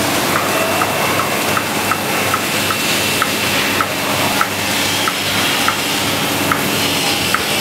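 H-beam welding line running: a steady sizzling hiss with a light tick repeating about every half second.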